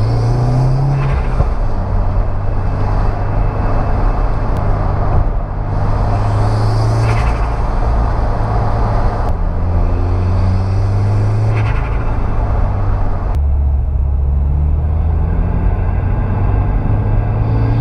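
Turbocharged 2.0-litre flat-four of a Subaru WRX pulling under light boost, its pitch rising, holding and dropping as it goes up through the gears. Short airy hisses a few times are the aftermarket Boomba bypass valve venting as the throttle closes.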